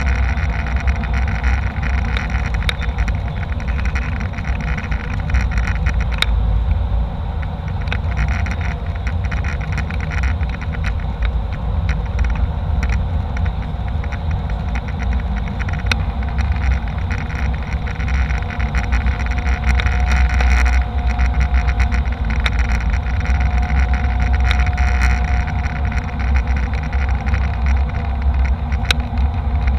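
Airliner cabin noise in flight: a steady deep rumble from the engines and airflow, with a faint steady whine running through it.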